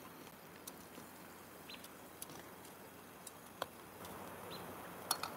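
Faint, scattered clicks and ticks from grilling pork skewers over a small charcoal grill: metal tongs handling the skewers, and the charcoal and meat ticking as they cook.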